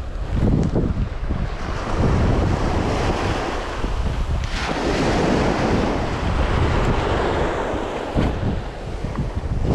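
Wind buffeting the microphone over small waves washing on the shore, with a louder wash of water about four and a half seconds in.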